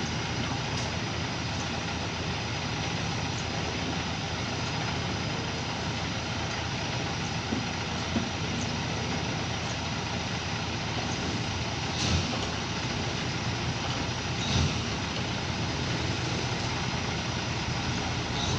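Steady mechanical running noise with a low hum, broken by a few short knocks.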